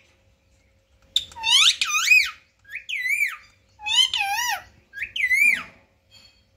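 Rose-ringed (Indian ringneck) parakeet vocalizing: four warbling, whistle-like calls with wavering, swooping pitch, starting about a second in.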